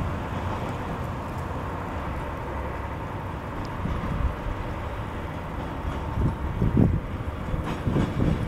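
Hakodate City Tram's Haikara No. 39 streetcar running on its rails: a steady low rumble, with a few wheel knocks over the track in the last couple of seconds.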